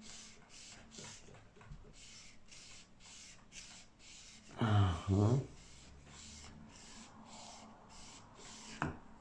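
Rhythmic rubbing strokes, about two to three a second, as dirt is scrubbed off an OO/HO gauge model railway rail with acetone. A short two-part hummed voice sound about halfway through and a click near the end.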